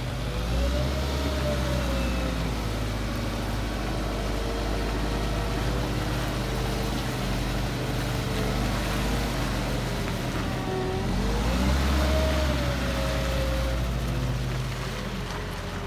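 Volvo L45G compact wheel loader's diesel engine running as the machine drives and manoeuvres, with a whine that rises and falls in pitch as the revs change. The engine gets louder for a couple of seconds about twelve seconds in.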